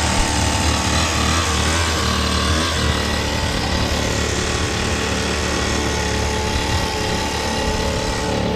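Small gas engine of a homemade radio-controlled go-kart running at a steady speed as the kart drives along.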